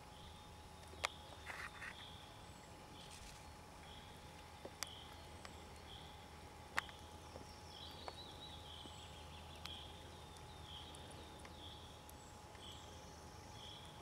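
Faint outdoor ambience: a short high chirp repeats about once a second, with a few sharp clicks and a faint steady hum underneath.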